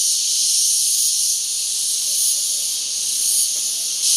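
Loud, steady chorus of shrill insects, a continuous high-pitched buzzing hiss with no pauses.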